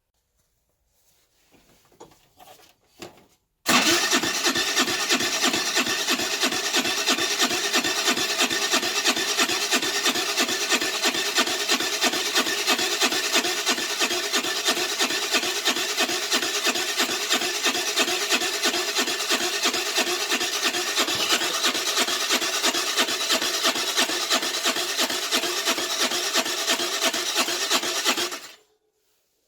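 Electric starter cranking the 50cc four-stroke engine of a Baotian Tanco scooter in one long, even, rhythmic spell that begins suddenly a few seconds in and cuts off near the end. The engine does not catch, typical of a flooded engine with a wet spark plug.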